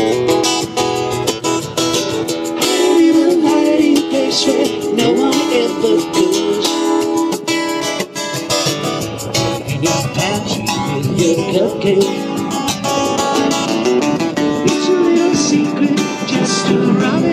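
Live acoustic band: two acoustic guitars strummed together with a tambourine jingling in rhythm and a man's voice singing a wavering melody over them, played through a small PA.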